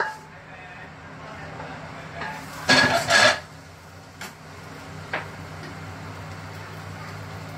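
Stone-coated wok clattering: two loud metal knocks close together about three seconds in, as the wok is set down on the gas hob's pan grate. A couple of light ticks follow over a steady low hum.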